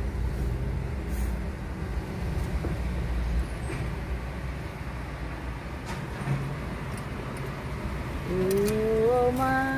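Car engine and road noise heard inside the cabin: a steady low idle rumble in the toll-gate queue, then the car pulling away through the raised barrier. Near the end, a loud pitched sound rises and wavers for about a second and a half.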